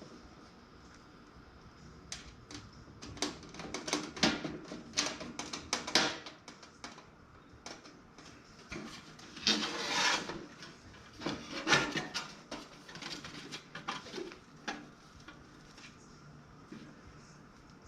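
Parts of a toaster oven's case being handled and fitted together: a quick run of sharp clicks and knocks, then two longer scrapes about ten and twelve seconds in.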